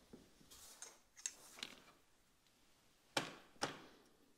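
A few faint clicks and taps, then two sharper knocks about half a second apart near the end.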